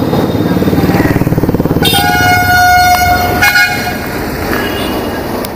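Hero Destini 125 FI scooter's single-cylinder engine running under way, with a vehicle horn blaring for about a second and a half starting about two seconds in, then a short second toot.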